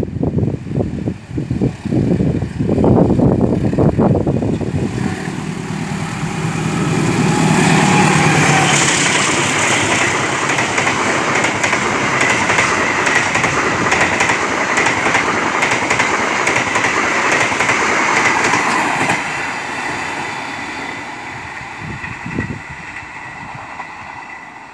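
A passenger train passing at speed. Loud irregular thumps come in the first few seconds, then a steady rolling rumble of wheels on rail with a thin ringing tone as the coaches go by. The sound fades away from about 19 seconds in.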